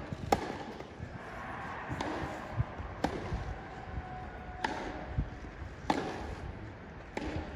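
Tennis rally: rackets striking the ball, five sharp pops one to three seconds apart, coming slightly faster towards the end.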